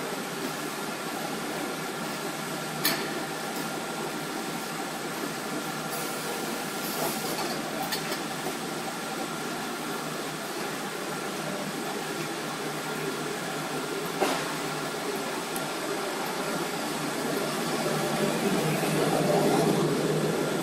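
Automatic corrugated-box folder-gluer machine running: a steady mechanical noise with a few faint steady tones in it, two sharp clacks, one about three seconds in and one about fourteen seconds in, and louder for the last few seconds.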